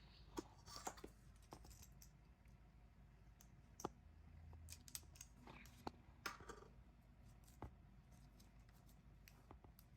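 Faint handling of a boxed K-pop album and its packaging: scattered light clicks and taps, with a short scraping rustle a little after six seconds in.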